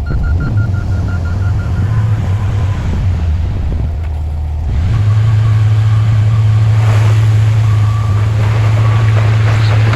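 Heavy construction machine's diesel engine running, a steady low drone that grows louder about five seconds in, with a faint repeating high-pitched whine or beep over it.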